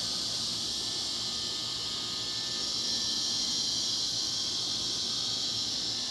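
Steady high-pitched hiss that holds evenly throughout, with no thunderclaps or rumble.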